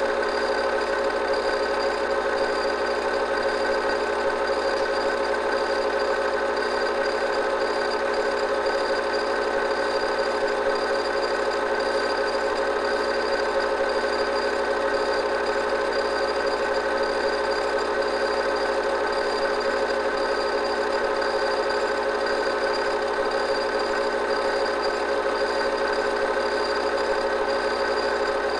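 Home-movie film projector running: a steady mechanical whir with a constant hum.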